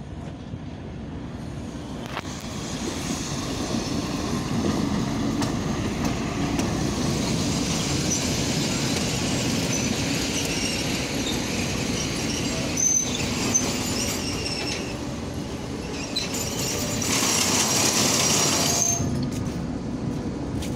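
TEP70 diesel locomotive running and rolling past on the rails as it moves up to couple onto a passenger train. Its 16-cylinder diesel engine is running. The sound grows over the first few seconds, and there is a louder hissing stretch near the end.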